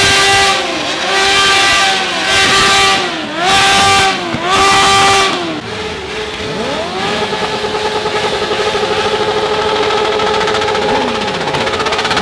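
Sport motorcycles with inline-four engines revved on the stand. First comes a run of about five sharp blips, each snapping up to the same high pitch and falling back. Then, about six seconds in, a BMW S1000RR sweeps up and is held at high revs, running steady with a rapid flutter.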